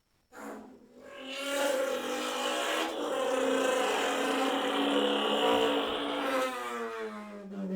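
Car engine sound effect: a short blip, then the engine note climbs in pitch, holds a steady high rev for several seconds, and winds down near the end.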